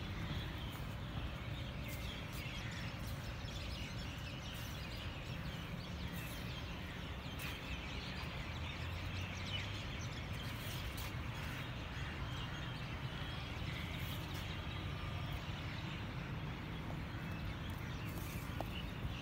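Many birds chirping and twittering over a steady low outdoor rumble.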